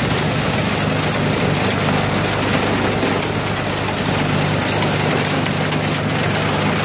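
Homemade hydraulic firewood processor running with a steady drone while its splitter pushes a round through the wedge.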